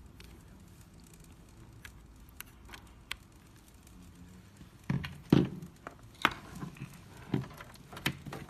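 Handling noise of a USB cable and keyboard being picked up and plugged together: a few faint clicks, then several louder knocks and plastic clatters from about five seconds in.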